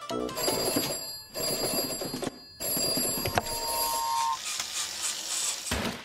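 Rapid bell ringing in several bursts broken by short pauses, with a brief whistle-like tone about four seconds in.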